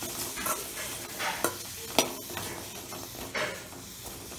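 Shallots sizzling as they sauté in oil in a metal kadai, with a steady hiss, while a metal spatula stirs them, scraping and clinking against the pan several times.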